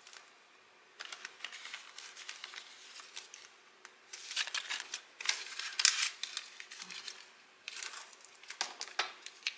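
Paper banknotes and a clear plastic binder pocket rustling and crinkling in stops and starts as a one-dollar bill is handled and stuffed into the pocket, busiest in the middle of the stretch.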